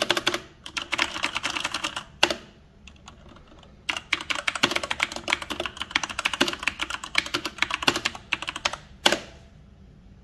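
Typing on a Redragon Dark Avenger mechanical keyboard with Red switches: fast runs of keystroke clacks, with a lull about two to four seconds in. The clicking stops shortly before the end.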